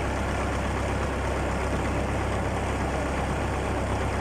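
A fishing boat's engine running steadily, a low even drone.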